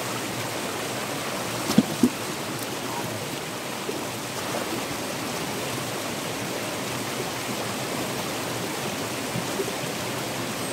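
Small rocky jungle stream rushing and splashing over stones in a steady wash of water, with two sharp knocks close together about two seconds in.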